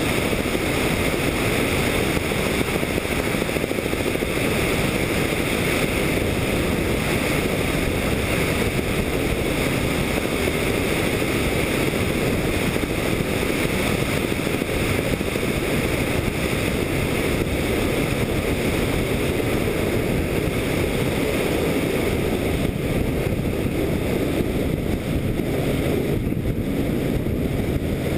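Light helicopter in flight: a steady, dense mix of engine and rotor noise with wind rushing over the microphone. The upper hiss eases slightly near the end.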